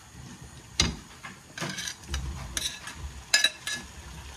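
Metal kitchen utensils clinking and tapping: about five sharp, separate clinks spread across a few seconds, each with a brief ring.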